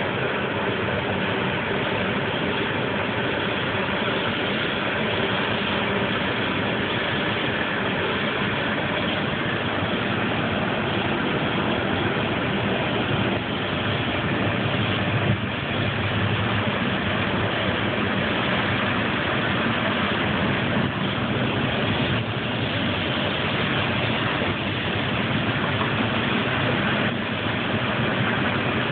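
An engine running steadily at an even level, with no revving or change in pitch.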